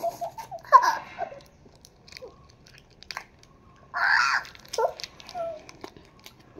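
Children giggling and making short vocal sounds, with a burst of laughter about four seconds in. Small crinkles and ticks of a candy wrapper being unwrapped sound between them.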